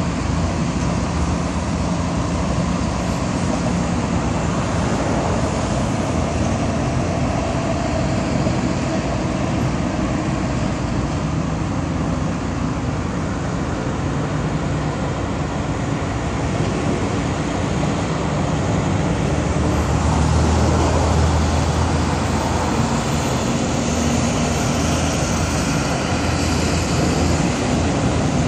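Steady road traffic noise from busy roads, a continuous rush of passing vehicles. A deeper rumble swells about twenty seconds in, then eases.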